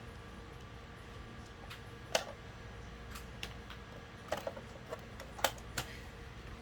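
Scattered sharp clicks and light knocks of hard plastic parts being handled on a disassembled electric fan. There are about half a dozen, the loudest about two seconds in.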